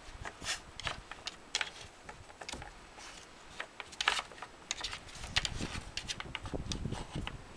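Wooden pieces of a Nina Ottosson Dog Power puzzle board clicking and knocking as a hound noses and paws at its blocks and pegs. Irregular taps, the loudest cluster about four seconds in.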